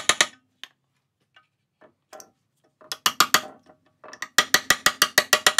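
Spark plug tube seals being knocked into a valve cover through a socket on an extension bar: quick runs of sharp metallic taps, about ten a second, in three short bursts at the start, about three seconds in, and near the end. The seals are being driven down evenly until they seat.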